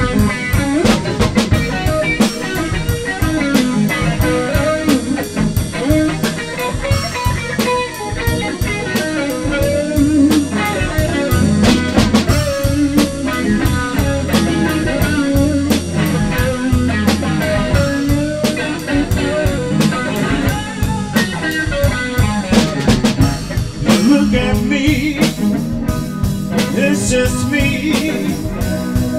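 Live blues band playing: electric guitar over a drum kit, with steady drum strikes throughout.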